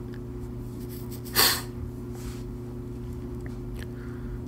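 A man's short, sharp breath in through the nose about a second and a half in, during a pause in his talk, over a steady low hum.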